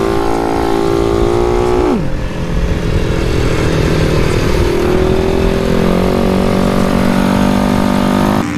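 Loud single-cylinder engine of a Yamaha underbone scooter run hard on a racetrack, heard on board: a steady high-revving note that drops sharply about two seconds in as the rider backs off the throttle, then climbs slowly again over the following seconds.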